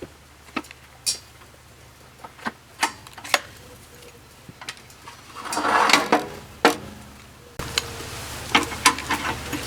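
Log splitter's small engine running steadily under a string of sharp metallic clicks and clanks, with a brief rushing swell about six seconds in. The hydraulic ram is moving slowly, which the owner suspects comes from a worn drive belt.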